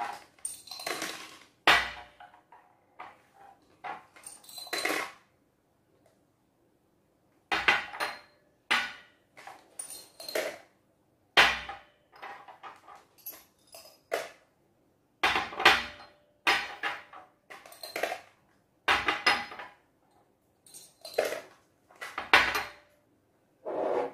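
Small hexagonal glass jars clinking and knocking against a tabletop and each other as they are picked up and set down. The sharp clinks ring briefly and come in irregular clusters, with a short pause near the middle.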